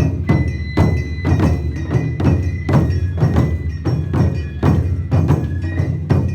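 Awa Odori festival band playing: drum and bell strikes on an even beat about every 0.4 s, with a held high flute note through the first half.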